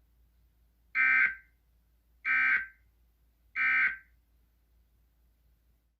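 Emergency Alert System end-of-message signal: three short bursts of SAME digital data tones, each about half a second long and about 1.3 seconds apart, marking the end of the alert.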